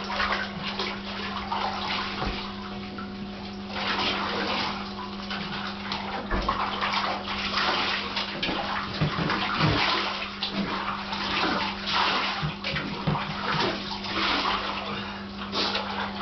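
Bathwater splashing and sloshing in a bathtub as a Staffordshire bull terrier is washed by hand, in many short irregular splashes, with a steady low hum behind.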